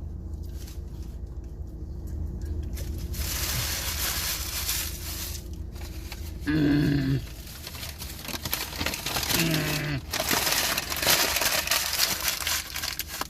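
Food wrappers and a bag being crumpled and rustled in two long spells. Between them come two short vocal sounds, a grunt or hum.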